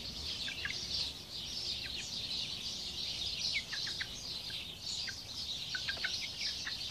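A brood of young chicks peeping: many short, high, falling calls that overlap into a steady chorus.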